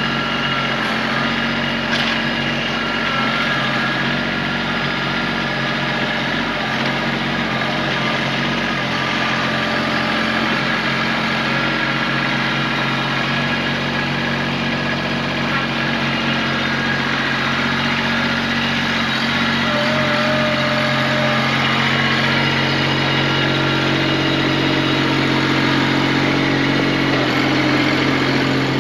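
Tractor engine running steadily, with a single sharp click about two seconds in.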